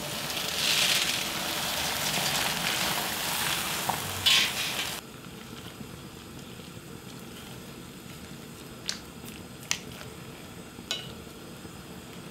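Pot of boiling water bubbling and hissing loudly as fresh spinach is tipped in, cut off abruptly about five seconds in. Then a quieter steady hiss of the pot as the spinach blanches, with three light taps of wooden chopsticks against the stainless steel pot.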